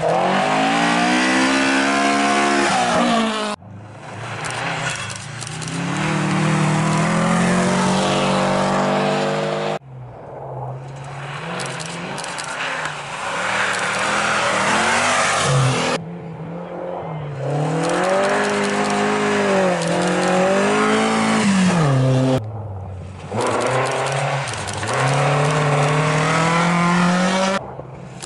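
Rally cars passing one after another, each engine revving hard, dropping at gear changes and climbing again as the car accelerates. The sound cuts abruptly from one car to the next about every six seconds.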